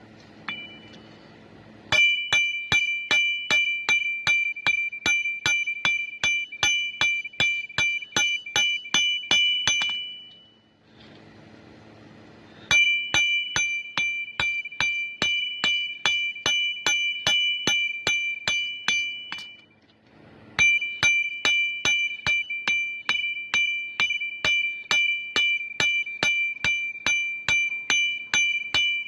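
Hand hammer striking an annealed copper petal blank on an anvil in quick, steady blows, about three or four a second, each with a bright ringing note. The hammering comes in three long runs, stopping briefly twice.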